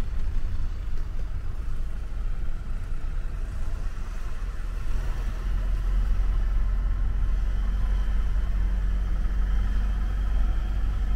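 Motorhome engine and road noise heard from inside the cab while driving slowly: a steady low rumble, with a faint engine hum rising out of it about halfway through.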